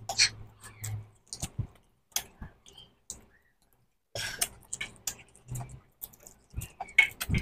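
Pomelo segments being torn from their membranes by hand and eaten: irregular wet crackles, clicks and mouth-smacking chewing, with a pause of about a second midway.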